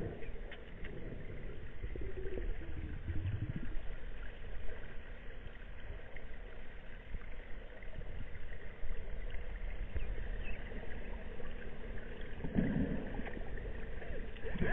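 Steady underwater ambient noise of a swimming pool picked up by a submerged camera, with two brief low swells of sound, about two seconds in and near the end.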